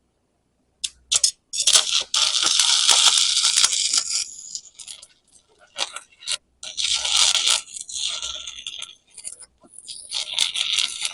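Stick-welding arc from a 7018 electrode crackling and sizzling in three bursts with short gaps between, the longest about two and a half seconds; it is the first pass on a V-grooved clevis joint.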